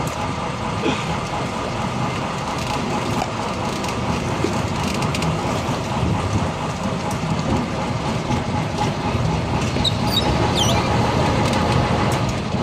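Small passenger ferry boat's engine running steadily with water churning around the hull as it comes alongside a pontoon, with a few brief high squeaks about ten seconds in.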